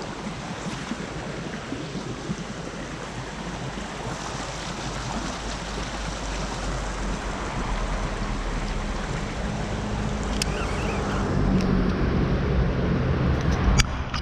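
Shallow creek water rippling and rushing over rocks, with wind buffeting the microphone and adding a low rumble that grows stronger in the second half. A couple of sharp clicks sound near the end.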